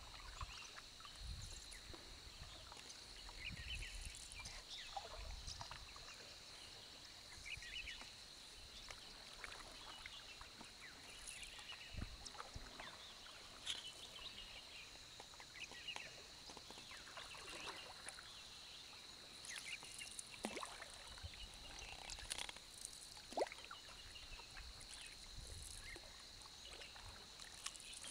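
Faint river ambience heard from a canoe: occasional knocks and water sounds from the paddle and hull, scattered short bird calls, and a steady high whine.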